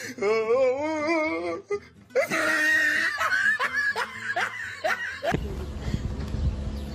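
People laughing: first a wavering laugh that swings up and down in pitch, then after a short break a run of quick, rising laughs. About five seconds in it cuts to a steady low rumble.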